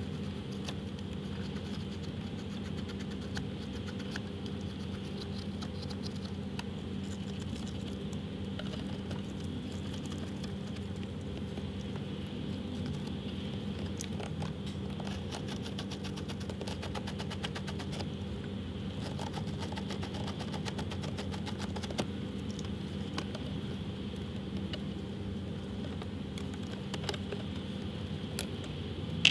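Small metallic clicks and clinks of hand work on a car battery's terminal clamps and cables, over a steady background hum.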